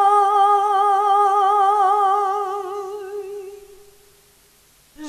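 A solo voice sings a folk song, holding one long note with a wavering vibrato that fades away about four seconds in. A new sung line begins just before the end.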